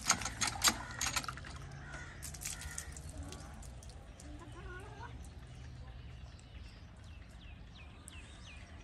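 Metal hand pump's handle clanking a couple of times as water is drawn, then quiet, with a bird chirping several short falling notes near the end.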